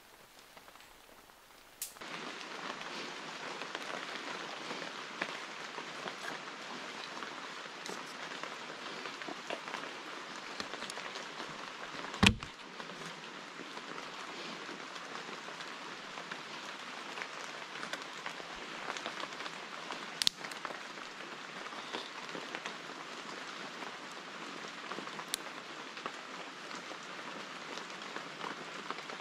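Steady rain pattering on forest foliage, a dense hiss of fine drop ticks that sets in about two seconds in. Two sharp knocks stand out, the louder a little before halfway.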